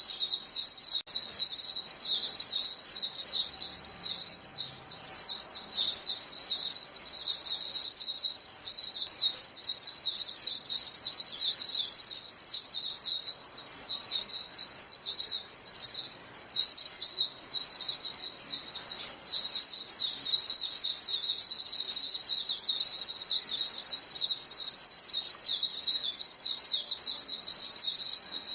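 A flock of female white-eyes calling to one another: a dense, continuous stream of quick high chirps, with one short break about sixteen seconds in.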